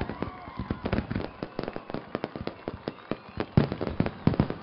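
Fireworks going off: a rapid, irregular run of sharp bangs and crackling pops, the loudest a little past halfway.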